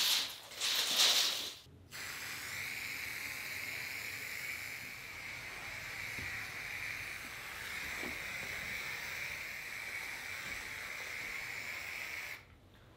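Aerosol can of white marking paint spraying a long, steady hiss from about two seconds in until just before the end. A sharp loud sound right at the start and a brief burst of hiss about a second in come before it.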